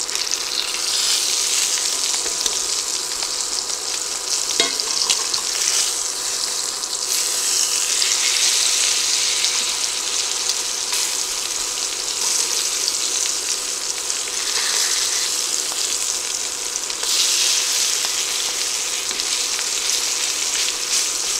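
Pork chops searing in oil and butter in a cast iron skillet: a steady, loud sizzle that swells and eases several times, with a few light clicks of tongs as the chops are turned.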